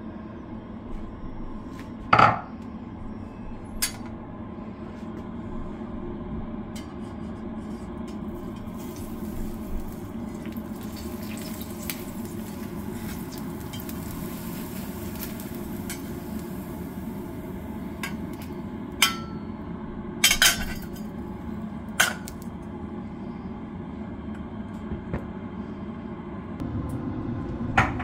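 Pot lid and metal utensils clinking against cookware, a handful of sharp knocks spread out over a steady low hum. Partway through there is a soft hiss of water being poured from a saucepan through a slotted spoon onto cooked rice in the pot.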